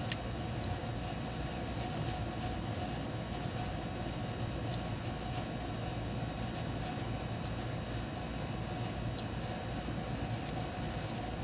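A steady low mechanical rumble with a faint steady whine over it, like an engine or machine running, unchanging throughout.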